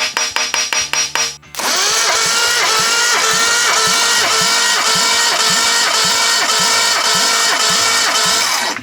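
Datsun 280Z inline-six being cranked on its starter for a compression test, spinning steadily for about seven seconds with a whine that dips in pitch about three times a second, then stopping abruptly. Rapid ticking comes first, for about a second and a half.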